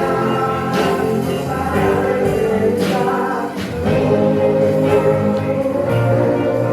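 Gospel music with a choir singing over a steady beat.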